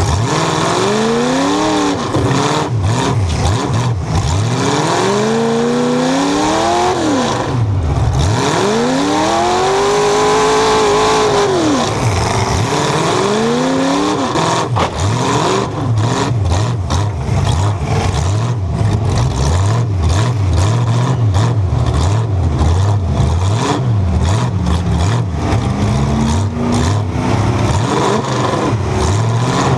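LS1 V8 engine of a demolition derby Chevy truck, heard from inside the cab with open exhaust stacks, revving up and falling back again and again as the truck drives and backs around. In the second half, many short sharp knocks and clatters from the truck's body and other loose metal sound over the engine.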